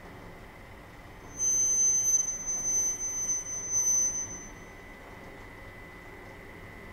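VMI Sigma ES250 spiral dough mixer running empty with a steady hum and a faint whine. About a second in, a loud high-pitched squeal starts, wavers, and fades out after about three seconds.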